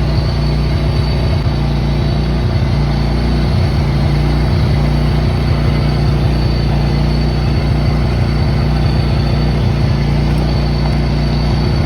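Engine of heavy wheat-harvest machinery running steadily, loud and low-pitched.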